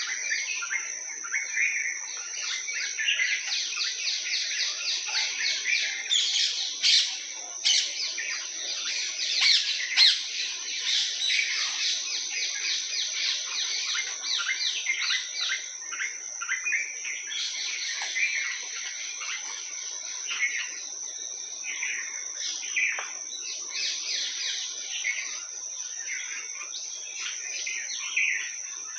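A busy chorus of tropical songbirds chirping and trilling over one another, loudest about a third of the way in, over a steady high-pitched tone.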